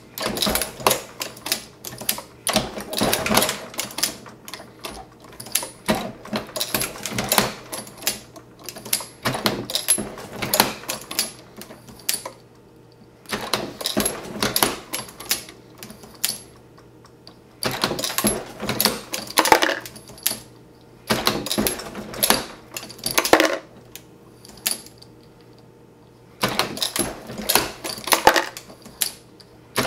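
Hornady Lock-N-Load progressive reloading press cycled stroke after stroke with every station loaded: runs of metallic clicks and clatter from the ram, indexing shell plate and brass cases, broken by short pauses between cycles.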